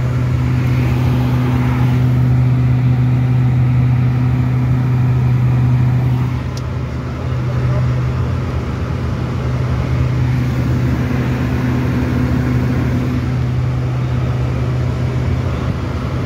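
Steady drone of a King Air F90's twin turboprop engines and propellers in flight, heard from inside the cabin, with a strong low propeller hum. The level dips briefly about six seconds in, then holds steady again.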